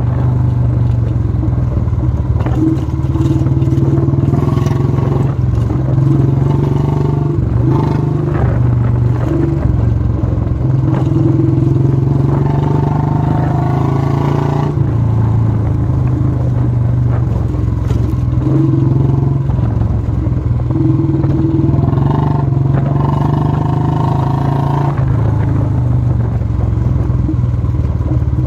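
Royal Enfield Classic 350's single-cylinder engine running under way on a rough road, its note rising and falling every few seconds.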